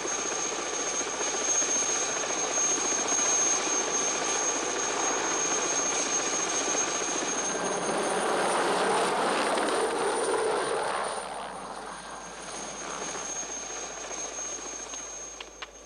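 Helicopter rotor and engine running steadily overhead; the noise drops away about eleven seconds in as the helicopter moves off into the distance.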